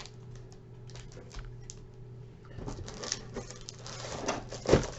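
Items being handled and moved about in a box: light scattered clicks, then denser rustling and clicking from about halfway in, with a sharp thump near the end. A low steady hum runs underneath.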